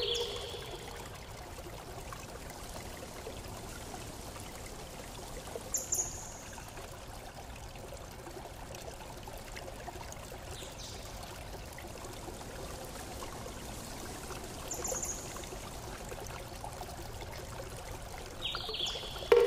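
Steady hiss and crackle of doughnuts deep-frying in hot oil in a frying pan, with a couple of brief sharp sounds and a louder short ringing sound near the end.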